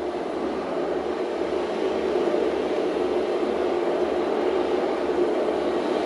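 A sea-storm soundscape: a steady, rushing roar with no separate strikes or voices, swelling slightly about two seconds in.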